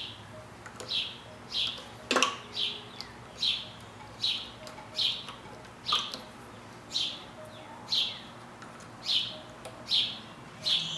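A bird chirping over and over in the background, short slightly falling chirps about two a second, with a single sharp click about two seconds in.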